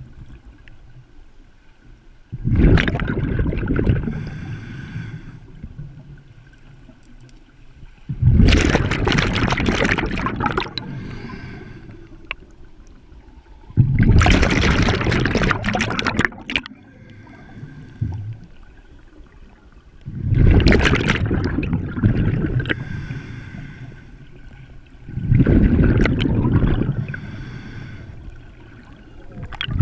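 Scuba diver breathing through a regulator underwater: about every six seconds a two-second rush of exhaled bubbles gurgling past, five times, with a fainter hiss in between.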